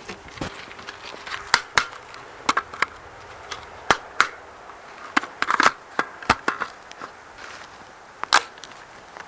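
Irregular sharp clicks and knocks, about fifteen of them scattered over several seconds.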